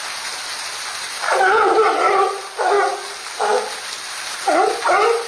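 Sea lion pup calling: one long bleating call about a second in, followed by four shorter bleats.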